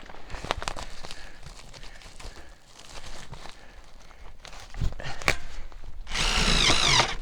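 Power drill driving a screw through the HVAC duct's flange, the motor whining for about a second near the end. Before it, scattered clicks and rustling from handling.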